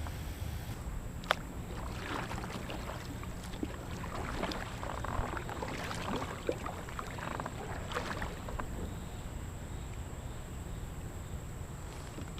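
Small knocks and clicks of gear on a fishing kayak on a river, over a steady low rumble, with one sharp click about a second in.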